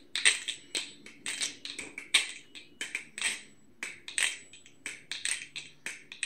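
A freshly tuned Squid Trainer V3.5 balisong trainer being flipped: an irregular run of sharp clicks and clacks, several a second, as the swinging handles strike the tang and pins. The owner finds it sounds quite good.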